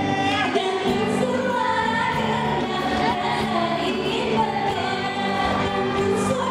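Two women singing a Malay-rhythm (irama Melayu) pop song into microphones, backed by a live band on drum kit, guitar and keyboards.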